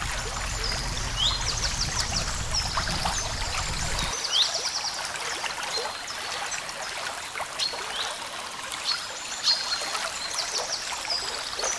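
Several birds chirping and calling again and again, with quick high trills and short rising notes, over a steady background hiss. A low rumble stops about four seconds in.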